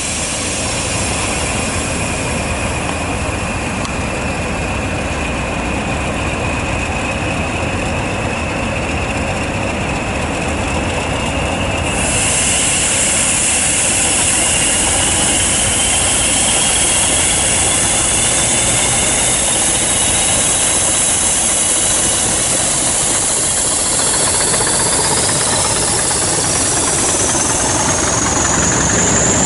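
Three Class 20 diesel locomotives in multiple pulling away under power, their English Electric eight-cylinder turbocharged engines running hard. A whistle from the turbochargers rises steadily in pitch throughout, and the sound grows louder about twelve seconds in.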